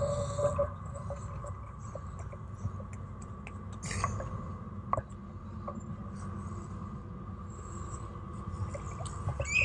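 Outdoor ambience: a low steady rumble under a faint steady hum, with scattered light taps and a couple of sharper clicks about four and five seconds in.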